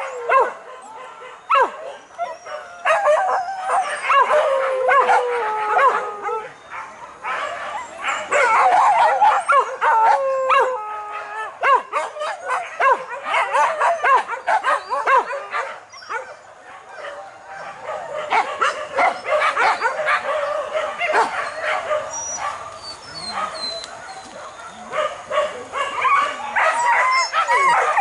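A pack of hunting dogs yelping and baying, many voices overlapping, while chasing a wild boar.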